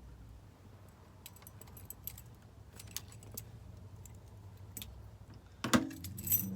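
Small metal clicks and jingling of a key and lock parts as a rekeyed door lock cylinder is fitted back into the lock, with a louder knock and a few clinks near the end.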